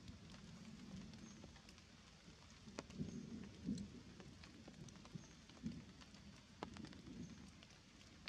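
Faint forest sound after rain: scattered sharp ticks of water dripping onto leaves, over an uneven low rumble that swells a few times.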